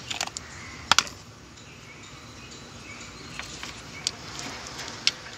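A few short, sharp clicks from a timing locking pin and engine parts being handled and fitted into the engine block, the loudest a quick double click about a second in, over steady background noise.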